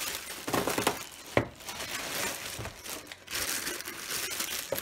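Clear plastic bag crinkling and rustling in irregular bursts as a MIDI keyboard controller wrapped in it is handled and pulled out, with one sharp knock about a second and a half in.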